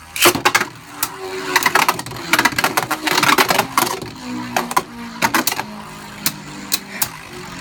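Beyblade Burst tops Vise Leopard and Blast Jinnius launched into a plastic stadium and battling: a loud launch right at the start, then a flurry of sharp clicking and rattling hits as they clash, over the steady whir of the spinning tops.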